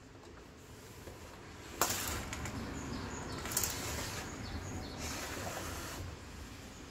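Plastic front cover of a Brother sewing machine being handled and fitted onto the machine: a sharp click about two seconds in, another near the middle, and a second of scraping plastic near the end.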